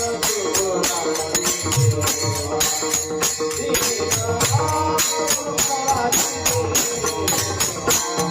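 Kirtan devotional music: small hand cymbals clash in a fast, even beat, about three to four strokes a second, over deep drum beats and a held tone, with a faint melody line.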